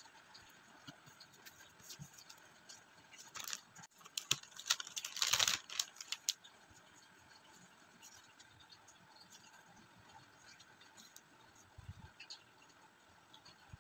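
Clear plastic OPP bag crinkling as it is opened and the postcards are slid out, in a burst of crinkling about four to six seconds in. After that there is only faint rustling as the cards are handled.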